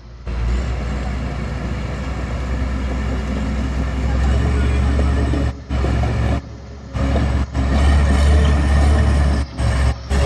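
Bulldozer's diesel engine running, a steady low rumble that grows louder about three quarters of the way through. The sound cuts out suddenly for short moments several times.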